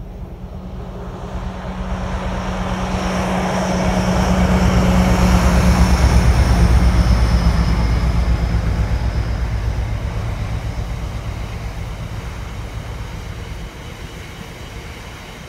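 Diesel-hauled freight train passing: the locomotive's engine hum builds to a peak about halfway through, then gives way to the rumble and rhythmic clatter of the box wagons rolling by, fading toward the end.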